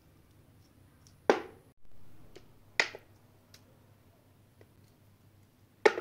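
Sharp clicks and small taps from apricots being split with a small knife and their stones pulled out by hand, three louder clicks among fainter ticks.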